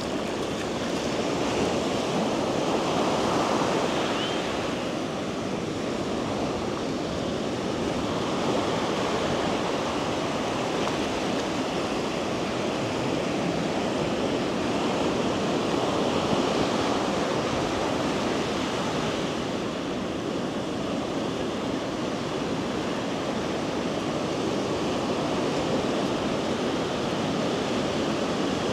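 Ocean surf breaking on a beach: a steady wash of waves that swells a little now and then.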